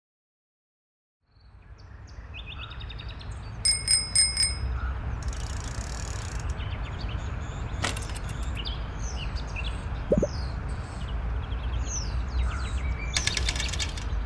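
Bicycle bell rung four times in quick succession about four seconds in, over outdoor ambience with a low steady rumble and birds chirping. The ambience fades in after a second or so of silence.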